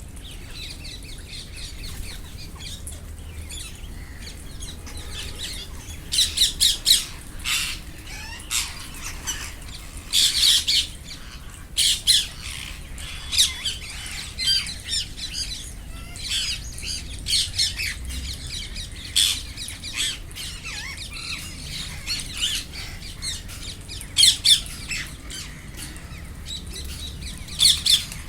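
Indian ringneck parakeets squawking: harsh, shrill screeches in repeated bursts, faint for the first few seconds and then loud and frequent.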